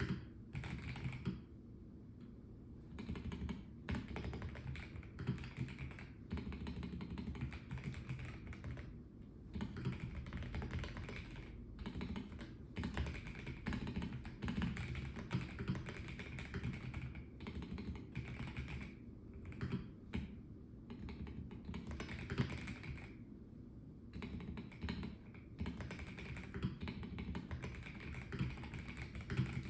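Typing on a Melgeek Mojo84 mechanical keyboard with a plastic case: steady runs of key clicks, broken by a few short pauses.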